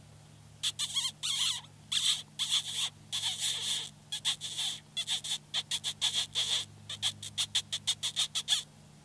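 Mouth squeaking used as a predator call, imitating a distressed rodent to draw in a bobcat. It is a run of high, sharp squeaks: longer ones at first, then quick short ones about three or four a second, stopping just before the end.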